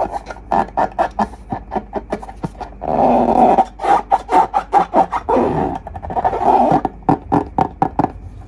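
Slime being squeezed and worked by hand: many short, quick sticky pops, with two longer continuous stretches about three and five seconds in, stopping just before the end.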